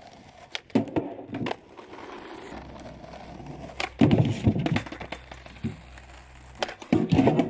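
Skateboard being ridden at a manual pad: a few sharp knocks early, then a loud clattering landing about four seconds in and another near the end, with the wheels rolling in between.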